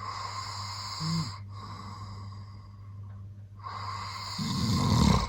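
A man snoring in his sleep: long, noisy breaths with a short snort about a second in, then a loud, low, rattling snore that builds near the end. A steady low hum runs underneath.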